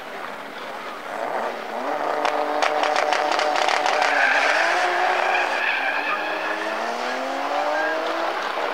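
Two cars, one a Toyota Mark II wagon, launching together from a standing start. Their engines rev up in rising pitch and drop back at each gear change, with a rapid crackle early in the launch and the tyres squealing.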